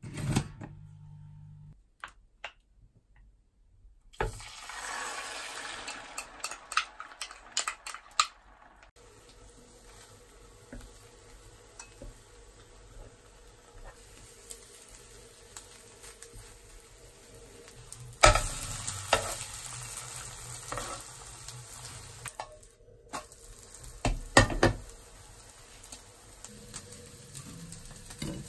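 Egg frying and sizzling in a non-stick frying pan while a wooden spoon stirs it, with sharp clicks of the spoon against the pan. The sizzling starts about four seconds in and grows louder past the middle.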